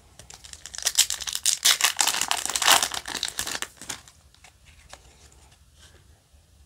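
Foil Yu-Gi-Oh! booster pack wrapper crinkling and tearing as it is ripped open, a dense run of rapid crackles for about three seconds, followed by faint rustling of the cards being handled.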